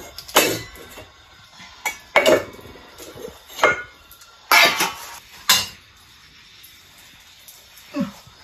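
Stainless-steel bowls and plates clanking together as they are taken off a shelf and stacked, about six sharp ringing clanks over the first five and a half seconds, then quieter.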